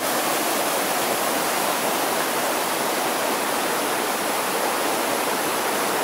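Stream water cascading over rocks in a small waterfall: a loud, steady, even rush of water.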